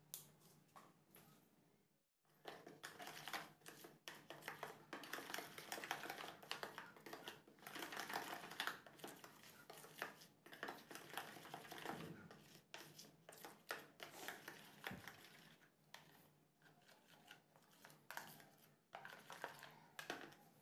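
A steel spoon stirring a wet spice paste in a plastic bowl, with quick, irregular clicks and scrapes against the bowl's sides. It starts after a brief silence about two seconds in.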